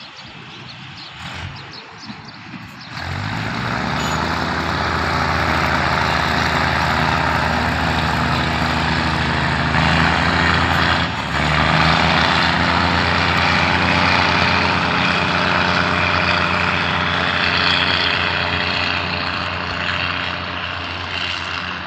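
Diesel railcar train passing close by as it pulls out of the station. A steady engine drone and wheel noise on the rails swell up about three seconds in and hold, dip briefly about eleven seconds in, and ease off slightly near the end.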